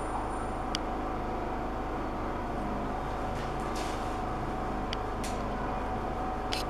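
A steady mechanical hum, with a few faint clicks scattered through it.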